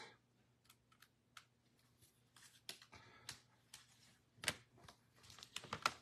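Faint rustling and clicking of trading cards and pack wrappers being handled, in short scattered bursts, the loudest about four and a half seconds in and near the end.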